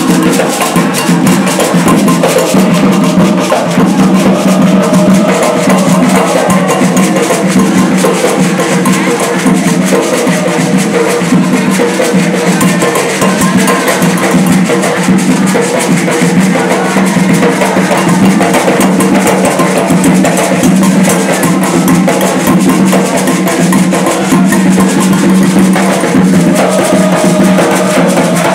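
Loud, steady drumming and percussion for a ritual dance at an Afro-Brazilian terreiro festa, the beat running on without a break.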